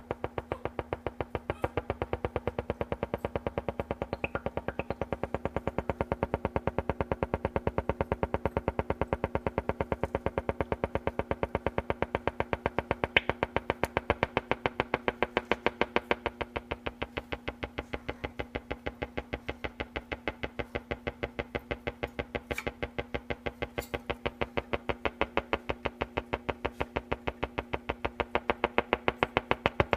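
Silvertone 4586 tube radio, just recapped, putting out a rapid, even pulsing buzz at several pulses a second over a steady hum instead of stations. The noise stays the same as the AM dial is tuned.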